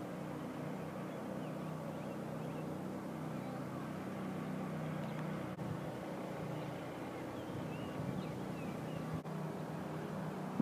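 Steady low hum and rumble of outdoor background noise, with a few faint high chirps now and then.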